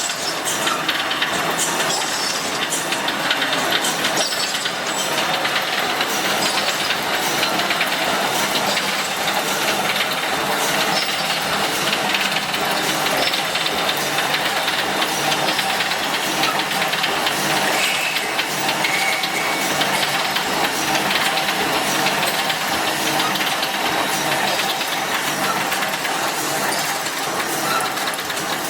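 Brickforce mesh welding machine running: a steady mechanical clatter of many quick clicks and rattles over a low machine hum.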